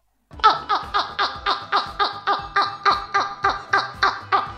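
Two men laughing hard, a steady run of 'ha' bursts about four a second, each falling in pitch, starting about a third of a second in.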